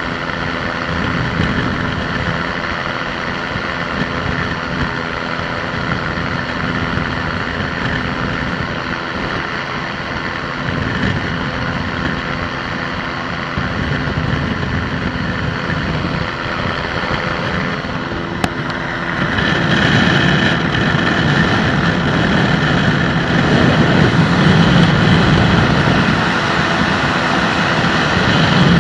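Microlight aircraft engine and propeller droning steadily in flight, heard from inside the cockpit with wind rush. About two-thirds of the way through there is a sharp click, and the sound then becomes louder and rougher.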